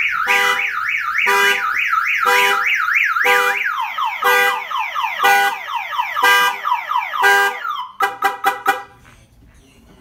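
Silencer aftermarket car alarm siren going off, cycling through its tones: a fast up-and-down warble with a pulsing lower tone about once a second, then repeated falling sweeps from about four seconds in, then a rapid chirping before it stops about nine seconds in.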